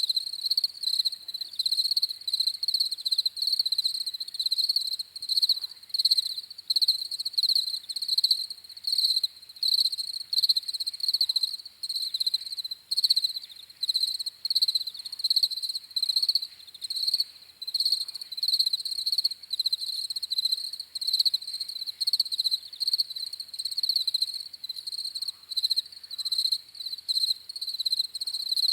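Crickets chirping: a continuous run of short, high-pitched pulsed chirps, about one or two a second.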